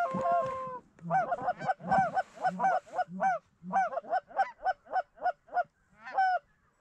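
Canada goose honking and clucking: a held call at first, then a quick, loud run of honks at about three a second that stops short near the end.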